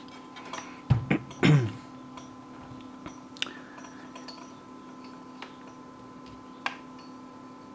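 A person clears their throat about a second in, then three sharp little clicks follow as multimeter test leads and alligator clips are handled and clipped onto a battery's terminals, over a steady faint hum.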